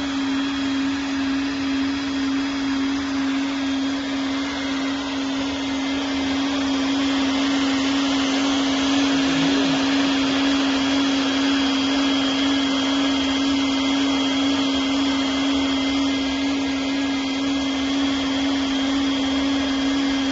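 TOP2000D PVC liner welding machine running: a steady motor hum over a dense hiss, getting a little louder about seven seconds in.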